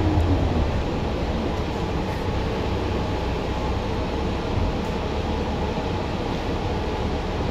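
Cabin noise inside a CNG-powered New Flyer Xcelsior XN40 city bus. A drivetrain whine falls in pitch and fades in the first second, leaving a steady rumble.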